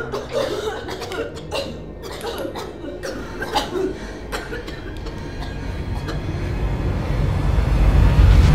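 Eerie horror-film sound design: scattered short knocks and clicks, then a deep low rumble that swells steadily over the last few seconds to its loudest at the end.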